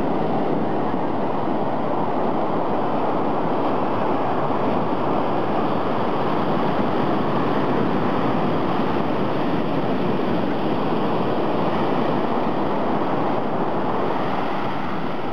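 Ocean surf breaking and washing up a sandy beach, a steady rushing without pause.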